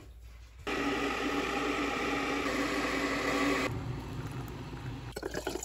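A machine running with a steady whir, dropping to a lower, quieter hum about three and a half seconds in.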